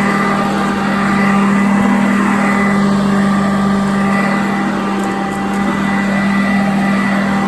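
Sanitaire upright vacuum cleaner running steadily on carpet, its motor giving a loud, even hum with a strong low tone.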